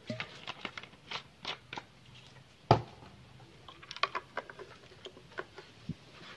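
Small plastic clicks and taps as a fuel bottle is taken from the filler neck and the fuel cap is fitted and screwed onto a Husqvarna 372XP chainsaw's tank, with one louder knock a little under three seconds in.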